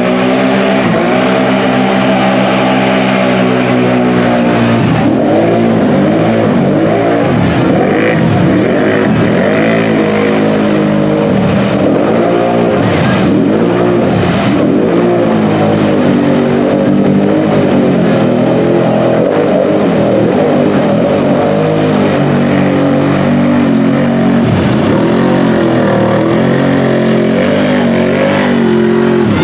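Engine of a lifted monster ATV revving hard as it churns through deep mud, its pitch rising and dipping again and again with the throttle.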